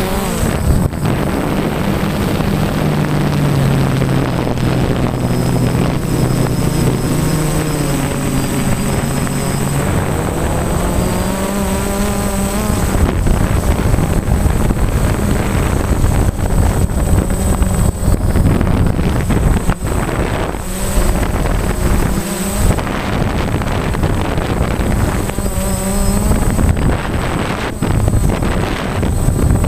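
RC model aircraft's motor and propeller heard from its onboard camera, its pitch rising and falling with the throttle. Wind buffets the microphone, and a steady high whine runs underneath.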